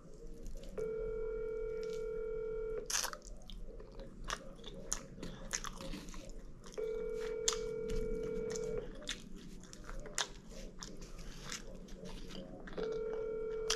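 Telephone ringback tone from a phone on speaker: an outgoing call ringing three times, about two seconds on and four seconds off, unanswered. Close-miked chewing and mouth clicks fill the gaps between the rings.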